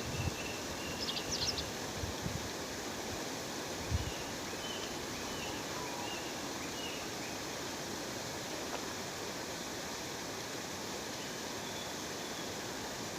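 Steady rush of a waterfall with small birds chirping over it: a quick cluster of high chirps about a second in, then scattered short chirps. A few low thumps come in the first four seconds.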